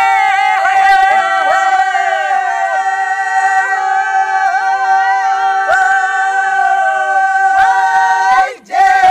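Dogri herders' bhakh folk song sung by men's voices without accompaniment: one long held, slightly wavering note that breaks off briefly near the end before the next phrase begins.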